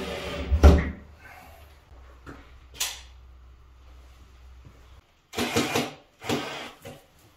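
A cordless drill/driver winding down, then a sharp clack about half a second in and a couple of small clicks. Near the end come two short bursts of a cordless drill boring into a tiled bathroom wall.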